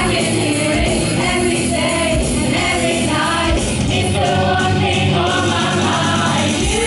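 A choir of voices singing a song together over instrumental backing.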